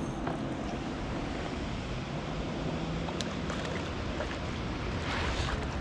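Boat motor running steadily under wind buffeting the microphone and water noise, swelling slightly near the end.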